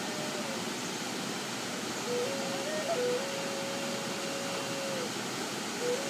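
Native American flute tuned in G# playing a slow melody over the steady rush of a waterfall. A held note fades out just after the start. About two seconds in, a new phrase begins with a few quick up-and-down note steps and settles on a long held note that ends about five seconds in.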